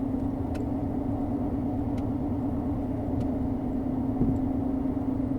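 A car travelling at a steady speed, heard from inside the cabin: a steady low hum of engine and road noise.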